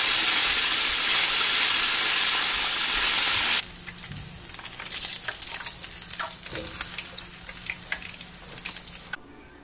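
Chicken drumsticks deep-frying in a skillet of hot oil, a loud steady sizzle that cuts off abruptly about three and a half seconds in. After that, quieter scattered clicks and light rustles as fried pieces are handled on paper towels.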